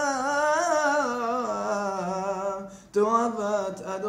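A man's solo voice chanting Torah cantillation in the Constantine (Algerian Jewish) tradition, drawing out one long wavering melismatic phrase. A brief break comes just before three seconds in, then the chant goes on.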